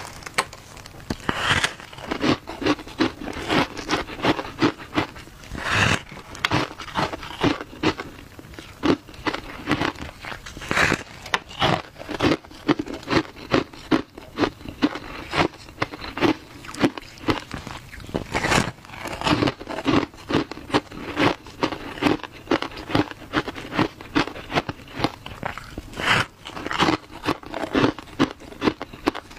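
Someone biting and chewing a block of frozen shaved ice dusted with matcha powder: rapid crisp crunching throughout, with a louder crunch every few seconds.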